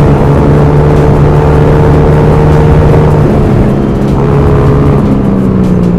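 Honda Aviator scooter's engine running at a steady cruise, with wind rushing over the microphone; the engine note shifts slightly a few seconds in.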